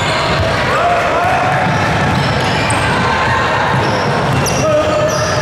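Basketball game sounds in a gym: a ball bouncing on the court amid short squeaks and background voices echoing in a large hall.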